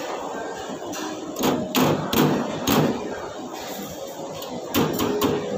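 Knocks and clanks of steel cookware, a pot lid handled over the stainless pot and tray, in two clusters: several about a second and a half to three seconds in, and a few more near the end.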